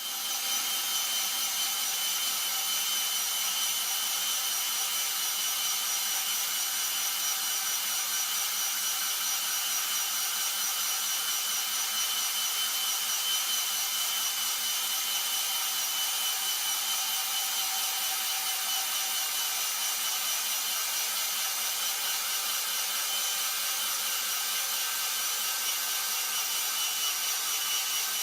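Metabo BS 18 LTX cordless drill/driver running steadily with a high-pitched whine, switching on suddenly at the start and holding an even speed throughout.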